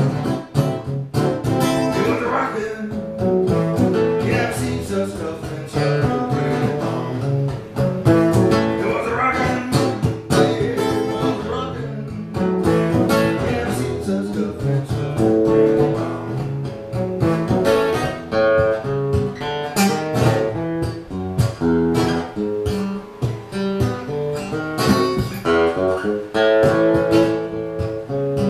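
Acoustic guitar played as an instrumental passage of a jump-blues song, quick picked notes and strummed chords going on without a break.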